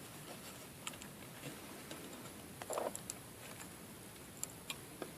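Faint, scattered clicks and ticks of a thin steel strip cut from a computer expansion-slot cover being handled and bent by hand, with one short scrape a little under three seconds in.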